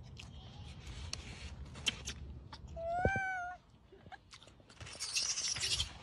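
Macaque giving a single short, high-pitched call about three seconds in, with small clicks around it and a brief rustling hiss near the end.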